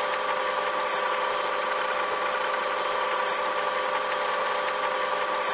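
Steady mechanical whirr and tape hiss with a held hum, a VCR rewind sound effect; it drops out briefly twice.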